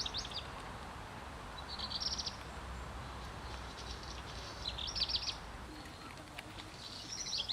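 Small songbird chirping in four short bursts of rapid high notes, a few seconds apart, over a steady low background rumble.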